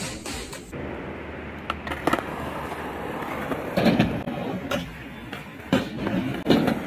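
Skateboard wheels rolling on concrete, with several sharp clacks of the board hitting the ground. The loudest clacks come about four seconds in and near the end.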